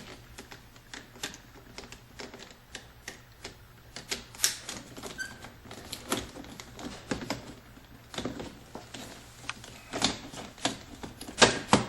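Irregular sharp clicks and knocks of hard plastic from a car's interior door trim panel and its parts being handled and fitted into place, with a loud cluster near the end.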